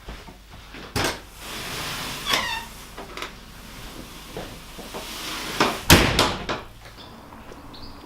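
A door or cupboard being handled: a click about a second in, a short squeak a little after two seconds, then a cluster of knocks around six seconds in, the loudest of them like a door shutting.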